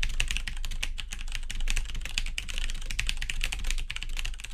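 Computer keyboard typing sound effect: rapid, uneven key clicks over a low hum, accompanying text being typed out on screen.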